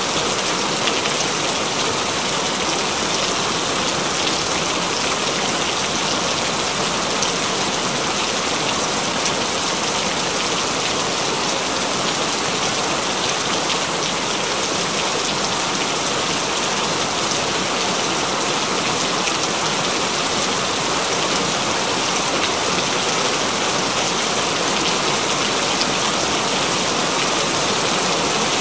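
Continuous rain falling steadily: an even hiss of rain with many fine drop ticks, unchanging in strength.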